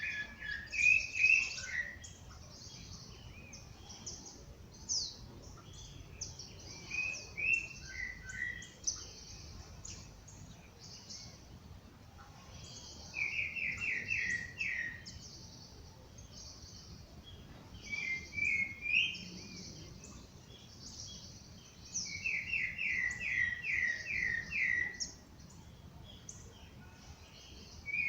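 Several songbirds singing. One sings a fast run of seven or eight even notes, twice, and there are other short phrases several times, over frequent thin, high chirps from other birds.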